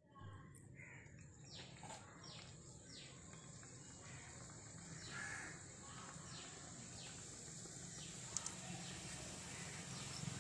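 Crows cawing in two bouts of a few calls each, over a faint steady high-pitched hiss.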